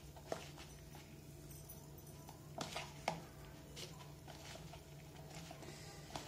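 A hand mashing and mixing crumbled bread with milk cream (malai) in a plastic tub: faint soft squishing and rubbing, with a few light clicks and knocks against the tub.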